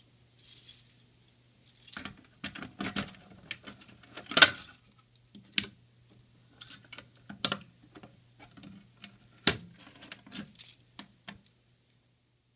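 A Fire-Lite pull station being reset by hand with its key: keys jangling, and a string of plastic clicks, rattles and knocks as the cover is opened and the pulled handle is pushed back. The loudest knock comes about four and a half seconds in, and the clicking stops near the end.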